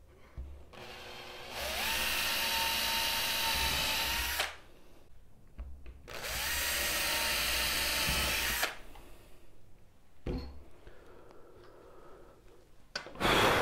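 Cordless drill boring holes through a wooden board in two runs of about three seconds each. The motor speeds up at the start of each run, then holds steady. A brief sharp knock comes near the end.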